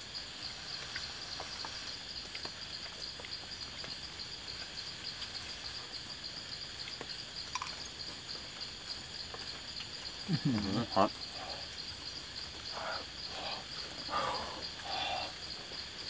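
Forest chorus of calling frogs: a steady high-pitched pulsing trill throughout. A few short, lower calls rise over it about ten seconds in and again near the end.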